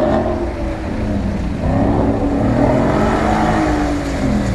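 Audi S5's 4.2-litre V8 revving under throttle: the engine note falls away, then climbs for about two seconds and drops again near the end.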